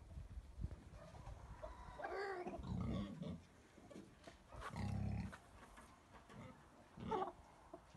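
Three low, growling animal calls, the first two longer and louder, the last short and higher.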